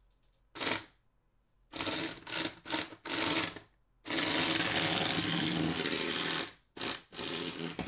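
3D-printed RC tank's DC gear motors driving its plastic tracks in short starts and stops, then one steadier run of about two and a half seconds, then two more short bursts.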